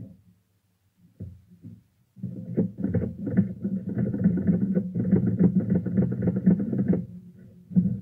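Torpedo manual typewriter typed on rapidly for about five seconds: a quick run of typebar strikes on the platen, the carriage stepping along as keys are struck. This is a test of the carriage feed after its cord was repaired. One more knock comes about a second after the typing stops.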